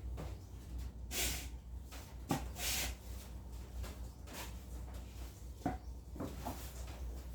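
Household objects being handled: a few light knocks and clicks, and two short rubbing or brushing noises, over a low steady hum.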